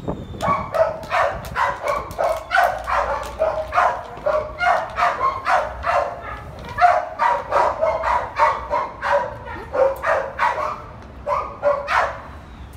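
A dog barking repeatedly, about two to three barks a second, with a short break shortly before the last few barks.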